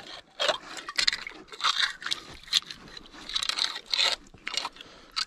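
Irregular crunching and scraping on wet gravel and rock, a few short crunches a second.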